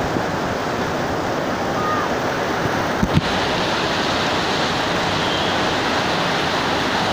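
Torrential monsoon rain pouring down in a steady rush, with gusting wind. There is a brief bump about three seconds in.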